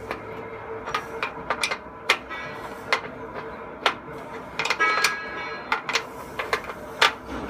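Irregular metal clanks and taps from hand assembly of a mini combine harvester, several strikes ringing briefly, with a cluster of quick knocks about five seconds in. A steady hum runs underneath.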